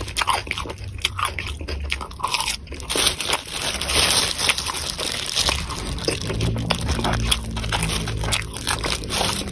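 Close-up chewing of a mouthful of mini beef meatballs in chili oil, with many small sharp wet clicks from the mouth, thickest a few seconds in.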